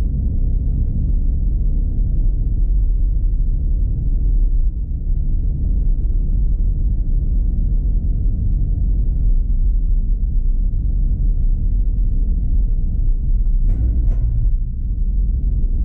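Vehicle engine and road rumble heard from inside the cab while driving slowly along a narrow lane. Near the end come two sharp knocks about half a second apart.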